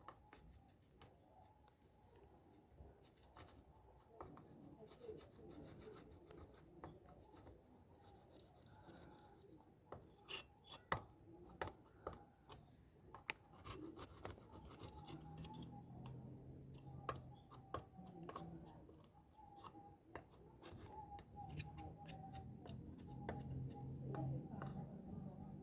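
Faint, scattered sharp clicks with light rubbing and scraping, as of small objects being handled, over a faint steady hum.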